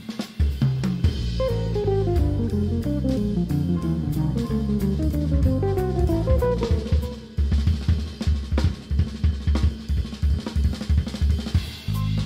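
Live jazz quartet of drum kit, electric bass, electric guitar and keyboard playing. Strings of falling notes run through the first half. In the second half the drums take over with quick, dense hits, and held bass and chords come back in near the end.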